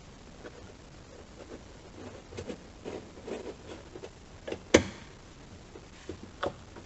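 Scattered light clicks, taps and rustles from parts and tools being handled while the hatch receiver is refitted. The loudest is a sharp knock just before five seconds in, with another about a second and a half later.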